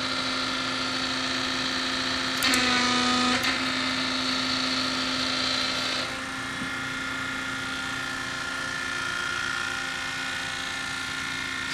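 Kitagawa S1552 hydraulic actuator cylinder running on a test rig with its hydraulic supply: a steady machine hum with a hiss over it. About two and a half seconds in, the hum grows louder and lower for about a second. Around six seconds in, the hiss stops and the hum carries on a little quieter.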